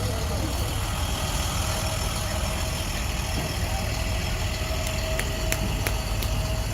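Engine idling steadily with a low rumble and a thin steady tone, and a few sharp clicks near the end.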